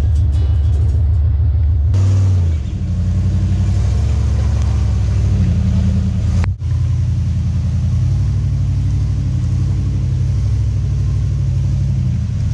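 Off-road truck engine running at low revs, its pitch rising and falling as it is worked. The sound breaks off abruptly twice, about two seconds and six and a half seconds in.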